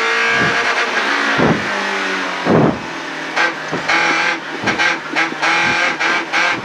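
Onboard sound of a BMW 318iS rally car's four-cylinder engine running hard at speed, its pitch shifting with throttle and gear. About halfway in come a run of short, sharp cracks as the pace drops into the next corner.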